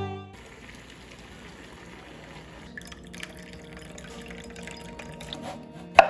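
Water dripping and trickling, with a single sharp click just before the end.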